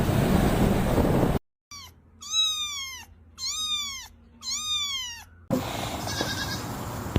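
An animal calls three times in high-pitched, meow- or bleat-like cries, each rising briefly and then falling, about a second apart. Before the calls comes a stretch of steady rushing noise, which cuts off abruptly.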